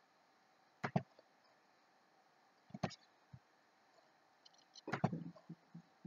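Faint clicks of a computer mouse, in three short bursts about a second in, near three seconds and around five seconds, as colour options are selected on a web page.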